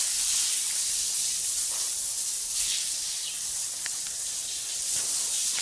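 Water spraying from a garden hose onto a wet tiled floor: a steady high hiss.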